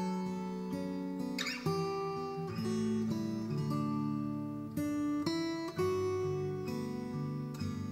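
Music led by a strummed acoustic guitar, with the chords changing every second or so.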